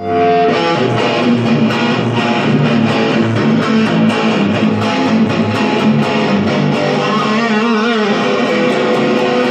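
Instrumental opening of a song: guitar-led band music over a steady beat, with a wavering, bent note about three quarters of the way through.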